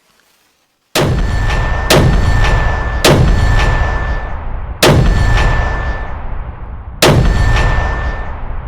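Fireworks going off: five loud, sudden booms, the first about a second in, then roughly every one to two seconds, each dying away with a rumble and a faint whistle.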